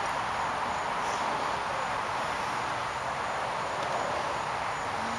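Faint, regular chirping of insects, repeating roughly every half second, over a steady outdoor hiss.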